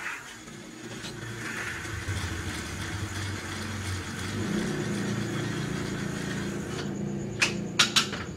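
A motor engine running steadily, its hum building up over the first couple of seconds and then holding, with a few sharp clicks near the end.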